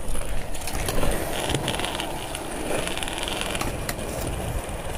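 Skateboard wheels rolling over rough concrete with a steady rumble, with a few sharp clacks of the board near the start and about a second in.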